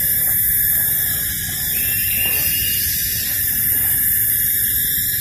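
Steady, high-pitched drone of tropical forest insects such as cicadas, with a faint rising call about two seconds in.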